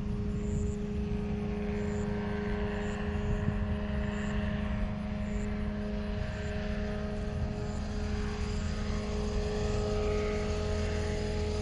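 Steady drone of a light propeller aircraft's engine, holding an even pitch throughout.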